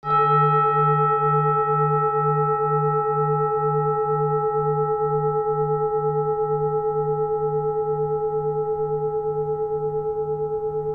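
One strike of a metal bell, ringing on with several steady tones and a slow wobble about two or three times a second. Its highest ring fades within the first few seconds.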